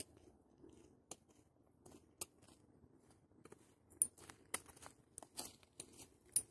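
Footsteps of a hiker with a trekking pole walking close by: faint, irregular crunches and sharp taps that grow louder and come faster about four seconds in, as he passes.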